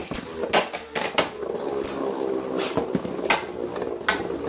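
Two metal Beyblade spinning tops whirring steadily in a plastic stadium, with about six sharp clacks as they collide.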